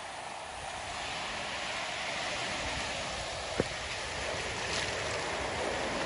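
Sea surf washing over a pebble and rock shore: a steady rush of water that slowly grows louder, with one sharp click about three and a half seconds in.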